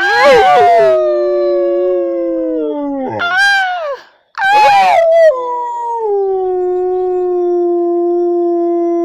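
Dog howling: two long howls. The first wavers at its start, then slides slowly down in pitch and breaks off about four seconds in. The second starts with a wobble and settles into one long, steady note.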